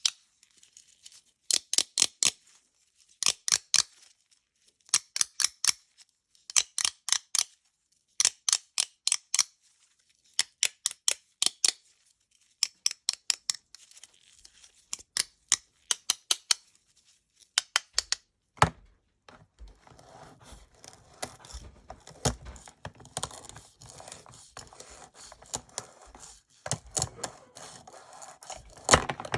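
Grapes being cut with a knife: short bursts of crisp crackling clicks repeating about every one and a half to two seconds. About two-thirds of the way through, a knock comes, and the cutting turns denser and fuller, with more body to each cut.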